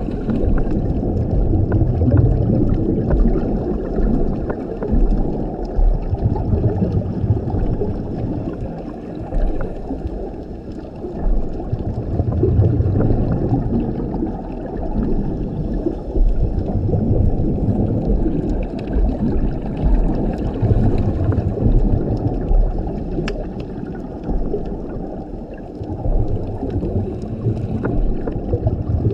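Scuba regulator breathing heard underwater: a diver's breaths cycle through the regulator, and each exhalation sends up a low, rumbling gurgle of bubbles about every six to seven seconds. Faint scattered clicks sound in the water between the breaths.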